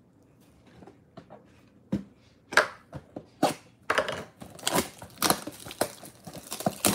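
Clear plastic shrink wrap being torn and crinkled off a sealed trading-card box, starting about two seconds in as a run of sharp crackles that grows busier toward the end.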